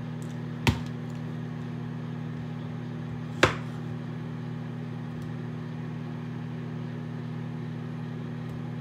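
Microwave oven running with a steady hum while it heats a container of water. Two sharp knocks cut through it, about a second in and again about three and a half seconds in.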